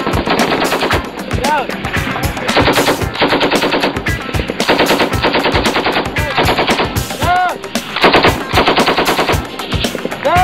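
M240 7.62 mm belt-fed machine gun firing from its bipod in a string of short bursts of rapid shots, each about a second long, with brief pauses between them.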